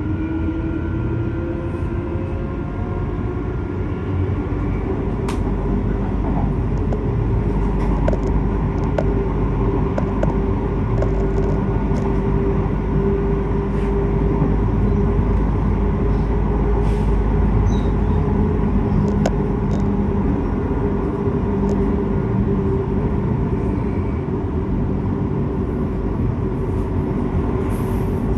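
Electric passenger train running, its traction motor whine rising in pitch over the first couple of seconds and then holding steady over a low rumble, with scattered clicks from the wheels on the track.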